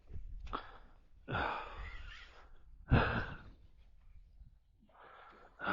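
A man's heavy breathing: three noisy exhales or sighs, about half a second, one and a half seconds and three seconds in, the last opening with a sharp bump.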